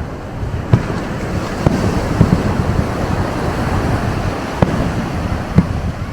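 Ocean surf washing onto the beach, a steady rush that swells through the middle, with about five sharp firework bangs going off through it.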